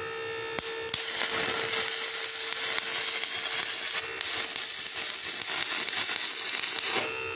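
Stick-welding arc from a 6011 rod crackling and sizzling while tack-welding a muffler flange; the arc strikes about a second in, breaks off for a moment midway, and stops shortly before the end. A steady hum runs underneath.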